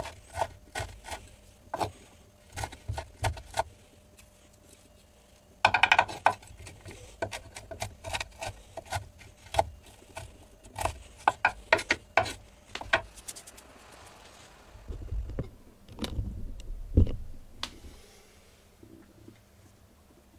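Kitchen knife chopping broccoli on a wooden cutting board: runs of quick, sharp knocks with short pauses between them. A few duller thumps come near the end.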